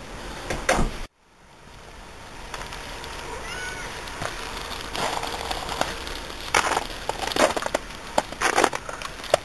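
Irregular crunching footsteps on snow and snow-covered gravel, growing denser in the second half. The sound drops out briefly about a second in, and a faint short chirping call comes about three and a half seconds in.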